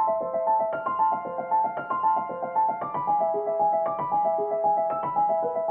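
Background music: a piano playing a repeating broken-chord pattern of about four notes a second.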